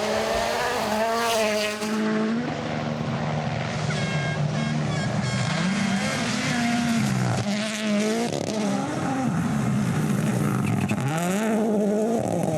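Rally car engine revving hard at racing speed, its pitch climbing and then dropping repeatedly through gear changes. The sound changes abruptly about two seconds in.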